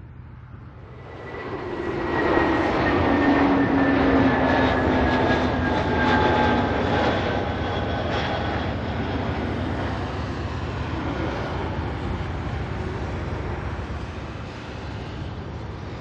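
Airbus A320-family jet airliner passing on landing. The engine noise rises steeply about a second and a half in, with whining tones that slide down in pitch as the aircraft goes by, then slowly fades.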